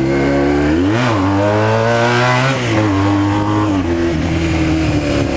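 Honda CBR 450 SR's 447 cc two-cylinder engine running hard through a straight-through exhaust. The pitch dips and climbs about a second in, rises steadily for over a second, falls back, then steps down again and holds steady.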